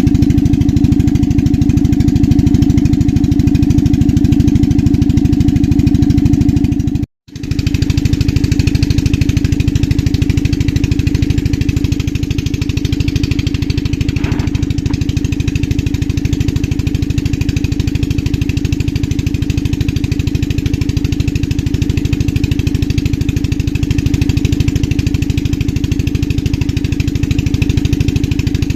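An engine running steadily with an even, fast pulse, cutting out completely for a moment about seven seconds in.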